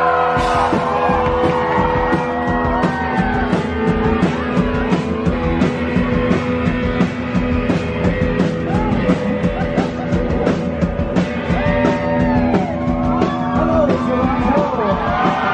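Rock band playing live, with drums, electric guitar and a singer.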